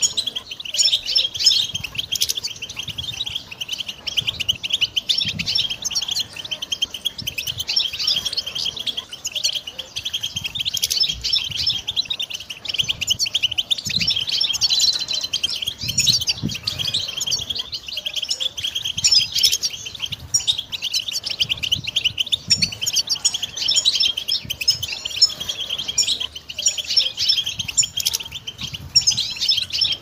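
European goldfinch singing: a fast, unbroken twittering song of rapid high notes and trills.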